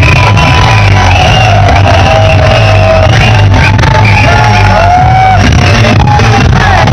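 Very loud amplified music with a heavy, unbroken bass and a high melody over it, with crowd shouting mixed in.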